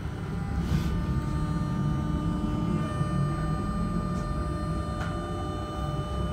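Z 20500 electric multiple unit pulling out of a station, heard from inside the carriage: a low rumble with several steady whining tones from the traction equipment as it gathers speed.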